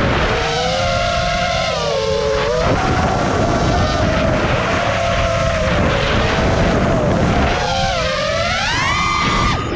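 FPV quadcopter's brushless motors and propellers whining, the pitch rising and falling with the throttle and climbing steeply near the end.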